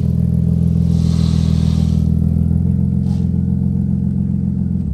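Vehicle engine idling steadily at an even pitch, then cutting off suddenly at the end.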